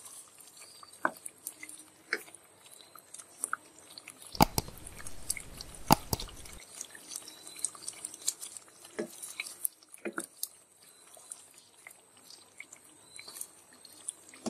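A spatula stirring thick curry gravy in a non-stick pot: wet stirring with scattered clicks and knocks of the spatula against the pan, and a run of louder strokes about four to six seconds in.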